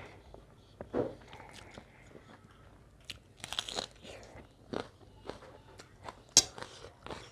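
Close-miked eating sounds: chewing a mouthful of noodles, then crisp crunching bites into a raw onion, with scattered sharp clicks and a sharp snap near the end.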